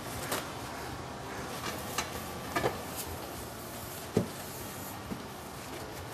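Scattered knocks and clinks of a cooking pot and metal serving tray being handled as a pot of chicken maqluba is turned over onto the tray. The loudest, duller knock comes about four seconds in.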